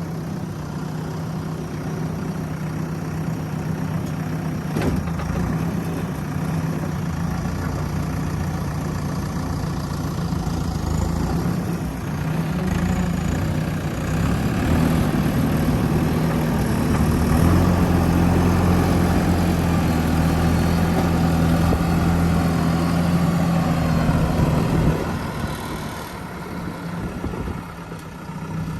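JCB 3DX backhoe loader's diesel engine running steadily, then louder from about halfway through as it works harder, dropping back to a lower, quieter run a few seconds before the end.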